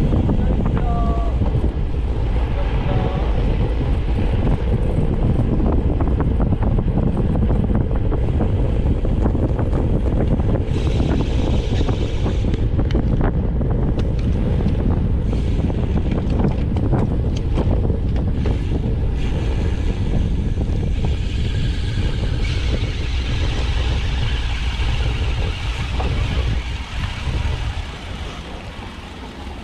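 Steady wind rumble buffeting the camera microphone while moving, easing off near the end.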